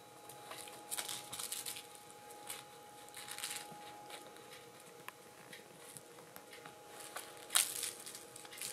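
Soft rustling and scuffling as a kitten grabs, kicks and bites a fuzzy pom-pom toy on a string against cloth. It comes in a few short bursts with small clicks, the loudest near the end, over a faint steady tone.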